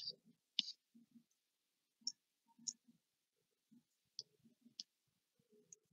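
Near silence broken by about seven faint, short clicks at uneven intervals.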